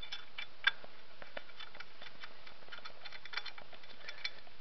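Small, irregular metal clicks and ticks of an Allen wrench turning a tight screw out of an airsoft rifle's lower rail, over a faint steady hiss.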